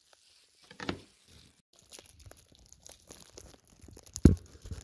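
A knife cutting and breaking a hard block of cocoa butter on a cutting board: crunching, crumbling scrapes with small crackles, and one sharp knock near the end.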